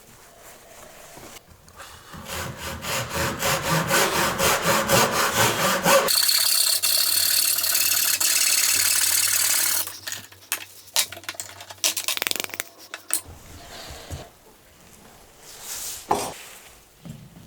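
Wood being cut with a Japanese handsaw (nokogiri): quick rhythmic saw strokes, about four a second, growing louder, then a few seconds of continuous rasping that stops abruptly, followed by scattered light knocks and scrapes.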